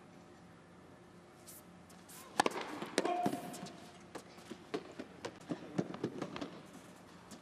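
Tennis ball struck by racquets on an indoor hard court: a hard hit about two and a half seconds in and another about half a second later. A run of scattered sharp taps follows.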